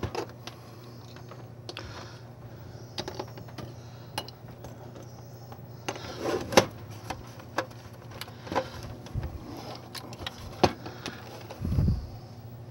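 Scattered clicks and light knocks of hands handling a GE clock radio's polystyrene case and working the plastic knobs off its side, with a soft low thump near the end. A steady low hum lies underneath.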